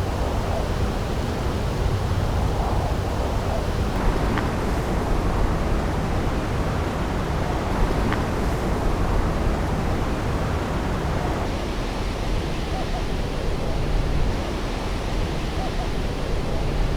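Strong wind buffeting the microphone, heard as a steady low rumble under an even rushing noise.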